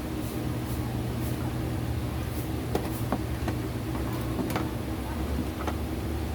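Steady low hum with a handful of light clicks and taps, most of them in the second half.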